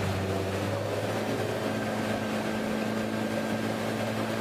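Suzuki outboard motor running steadily at speed, with water rushing in the boat's wake; its pitch rises slightly about a second in.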